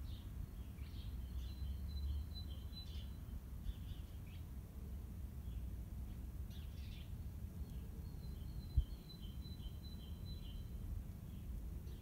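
Small birds chirping and twittering in short high notes over a steady low outdoor rumble, with a single thump about three-quarters of the way through.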